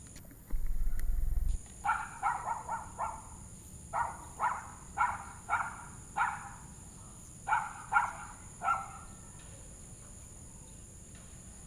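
Toy poodle puppy barking at a cow: about thirteen short, high yaps in three bursts. Near the start there is a second of low rumble on the microphone.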